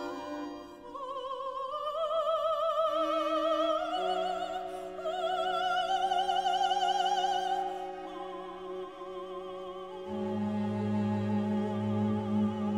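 Live classical music for voices, brass, strings and organ: operatic singing with wide vibrato climbs in a slowly rising line over steady held notes from the ensemble. About ten seconds in, low sustained notes come in beneath it.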